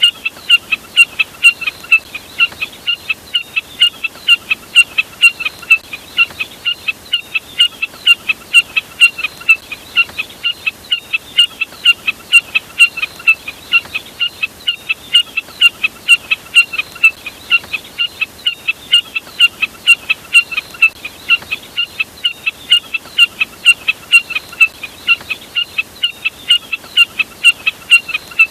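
Jack snipe calling: a steady, rapid series of short, sharp notes, about three a second, repeated without a break.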